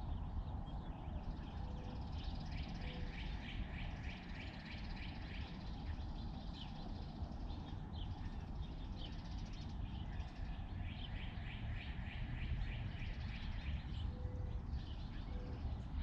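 Small songbirds calling: two runs of rapid repeated high notes, one near the start and one about two-thirds of the way through, with a few single chirps between them, over a steady low rumble.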